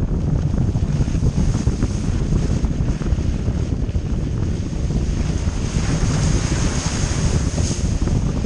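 Wind buffeting a side-mounted microphone over the tyre and road noise of a Dacia Duster 1.5 dCi 4x4 driving on a gravel track. A louder hiss comes in about six seconds in as the tyres run onto wet, snowy ground.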